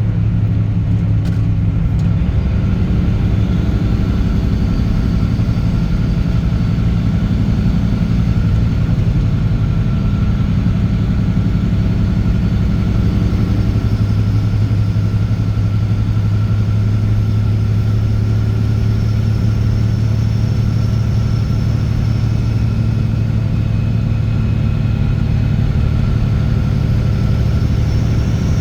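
Straight-piped Caterpillar C15 ACERT inline-six diesel in a semi truck, pulling steadily while the truck drives. It holds a loud, deep, even drone with only small shifts in pitch.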